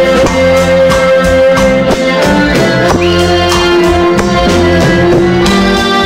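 Loud live band music: held melody notes over guitar and drums, with a steady beat.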